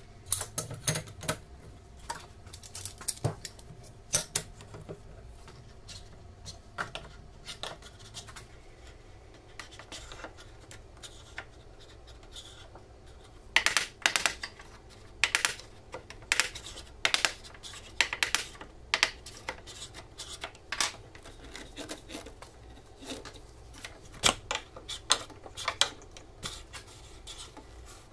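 Wooden strips and hand tools being handled on a wooden workbench: irregular sharp clicks and knocks as pieces are set down and clamped, coming in quick clusters through the middle and again near the end.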